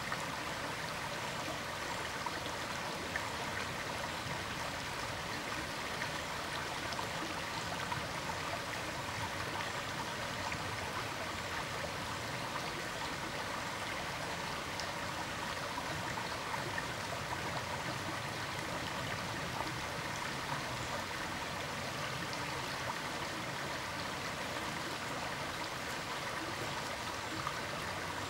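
Steady, even rushing of running water, like a stream, unchanging throughout.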